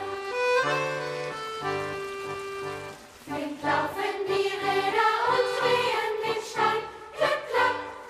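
Music with a choir singing.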